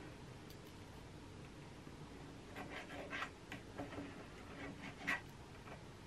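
Black marker pen scratching short strokes on fabric along the edge of a clear ruler, marking a square to cut out. The strokes are faint and come in a quick run from about halfway through.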